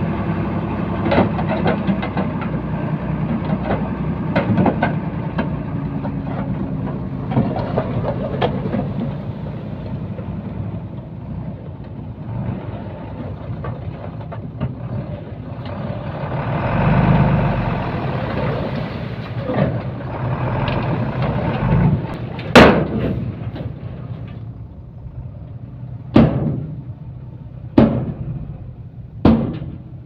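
Heavy diesel earthmoving machine engine running steadily, its revs swelling briefly about halfway through. In the last third come four sharp metallic clanks, the loudest sounds here.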